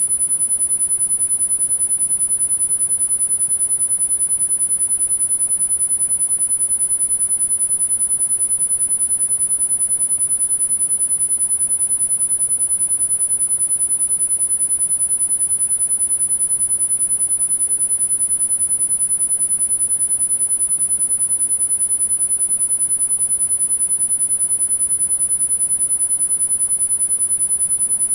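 A single steady, very high-pitched pure sine tone, held unchanged throughout: a synthesized tinnitus-masking frequency.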